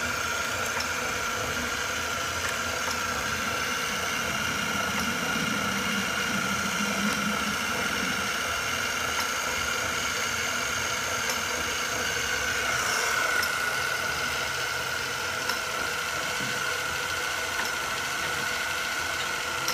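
Electric drive motor of a machine tool changer running steadily, a continuous whine with a low hum, swelling briefly about two-thirds of the way through; the repaired mechanism is turning without jamming.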